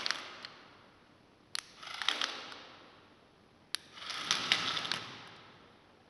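The robot car's small plastic-geared DC motors whir and rattle in short bursts of about a second. Two of the bursts begin with a single sharp click.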